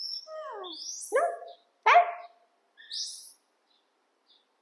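Baby macaque calling: three short cries falling in pitch, about a second apart, mixed with thin high squeaks.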